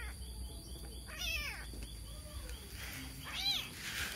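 Very young kitten mewing: three high-pitched cries, each rising and falling in pitch, the calls of a kitten separated from its mother and looking for her.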